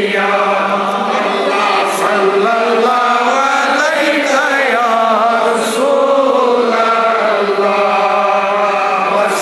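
Congregation of men chanting Darood, the Islamic salutations on the Prophet, together in a continuous melodic recitation.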